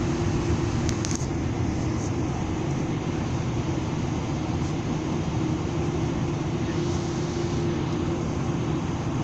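Steady engine and airframe noise inside the cabin of a Boeing 777-300ER taxiing at low thrust, its GE90 engines giving a constant rumble with a steady hum. A couple of faint clicks come about a second in.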